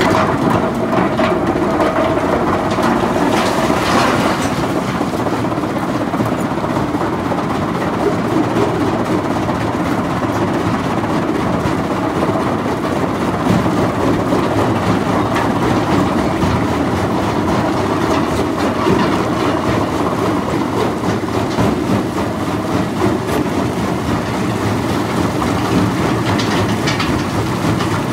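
Komatsu BR380JG-1 mobile crusher running under load, rock rattling and grinding through its vibrating grizzly feeder and crusher in a steady, loud clatter. Rocks tip from a loader bucket into the steel hopper, with heavier crashes in the first few seconds.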